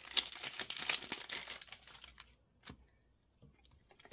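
Foil wrapper of a Panini Prizm basketball card pack being torn open and crinkled for about two seconds, then a single light click.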